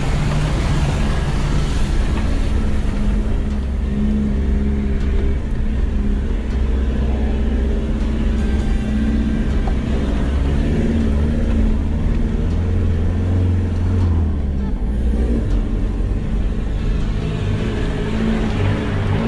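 Land Rover Defender 90 engine running steadily while the vehicle drives a rough dirt track, its low note rising and falling gently with the throttle over continuous road and tyre noise.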